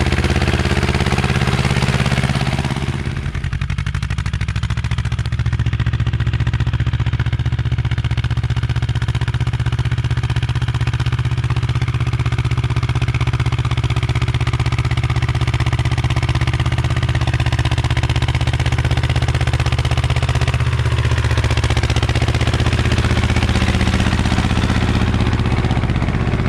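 Ursus C-330's two-cylinder diesel engine running steadily under load as the tractor pulls a plough through the soil. The sound turns duller about three seconds in.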